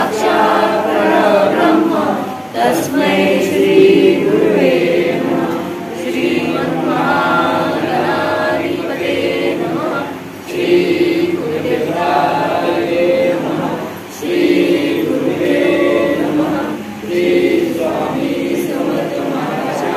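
Several voices singing a Marathi devotional aarti (a bhupali) together, in sung phrases separated by short pauses.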